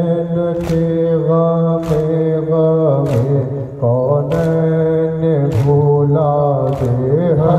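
Men chanting a noha (Shia lament for Imam Hussain) in unison, a lead voice at a microphone carrying a drawn-out, wavering melody, with a sharp chest-beat (matam) about every second and a bit, six strokes in all.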